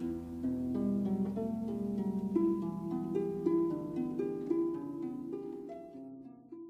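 Background music: a melody of plucked-string notes that fades out near the end.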